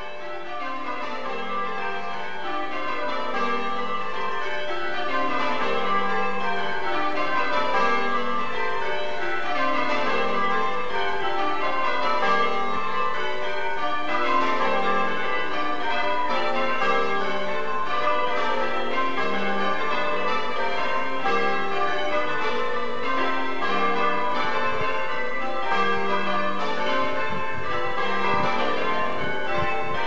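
A light ring of twelve church bells, tenor about 9 cwt, change ringing maximus: rapid, evenly spaced strikes that run down in pitch from the highest bell to the heaviest, row after row. The ringing grows louder over the first few seconds and then holds steady.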